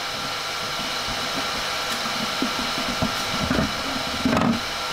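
Steady whirring hum of a Flashforge Creator Pro 3D printer. Over it, a plastic filament spool clatters and rubs as it is slid off its spool holder, loudest near the end.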